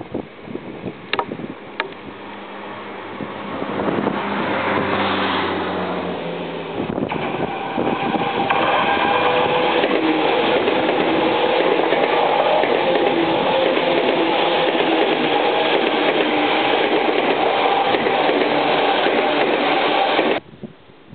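Tokyu 8500 series electric commuter train approaching and passing close by. Its running noise builds over the first few seconds to a loud, steady rush of wheels and running gear on the rails, which cuts off suddenly about twenty seconds in.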